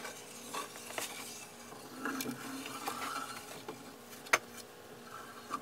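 Quiet handling at a wooden workbench: soft rustling and a few light clicks and knocks, the sharpest about four seconds in, as wood glue is squeezed from a plastic bottle along a pine board.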